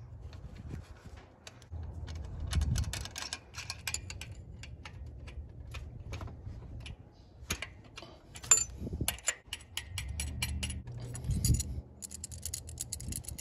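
A 17 mm open-end wrench clinking and ticking against the steel fittings of the intermediate high-pressure fuel pipe as the pipe is loosened. There are many scattered light metallic clicks and short jangling clatters, with a few dull knocks from handling.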